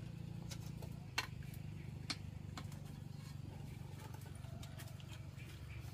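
Wood cooking fire crackling under a simmering pot of stew: sparse sharp pops over a low steady rumble.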